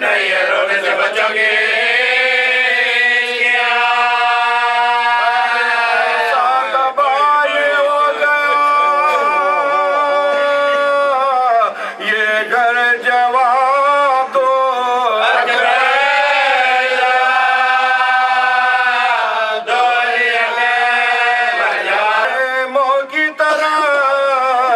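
A man chanting an Urdu nouha, a Shia mourning elegy, solo into a microphone, holding long, wavering notes. He breaks off briefly twice, about 12 and 19 seconds in, between lines.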